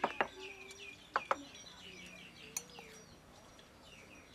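Small birds chirping in a run of short, falling chirps, with two pairs of sharp clicks, china plates being set down on a wooden table, right at the start and again about a second in.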